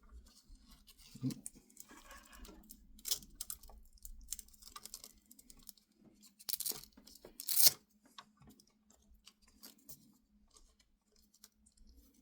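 Hands working cables into a PC case: scattered plastic clicks, rustles and scrapes of connectors and wiring, with two louder rasping scrapes a little past the middle.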